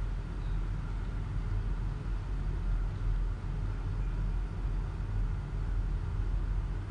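Steady low rumble of kitchen background noise, even throughout, with faint hiss above it and no distinct knocks or clicks.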